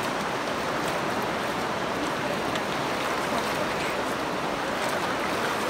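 Steady rushing of a shallow river running over rocky riffles.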